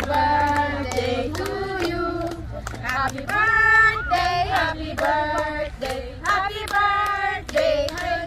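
A group of voices singing together, with hands clapping along in a steady beat of about two claps a second.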